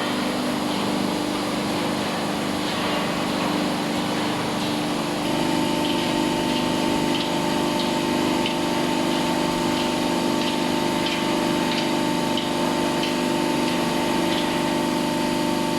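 Scrap metal baler machine running with a steady mechanical hum. About five seconds in the sound shifts and a steady higher whine joins, with faint regular clicks.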